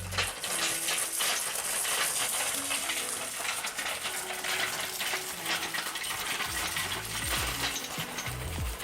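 Rapid, dense metallic clinking and jingling, like small metal pieces rattling against each other. Quiet background music with a bass beat comes back in about six and a half seconds in.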